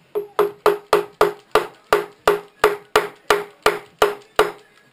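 Repeated sharp taps of a tool on metal, about three a second, each with a short ringing note.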